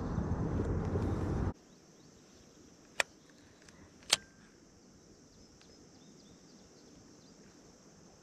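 Low rumbling noise on the GoPro's microphone that cuts off suddenly about a second and a half in. After that only faint outdoor background with a steady high hum, broken by two sharp clicks about a second apart.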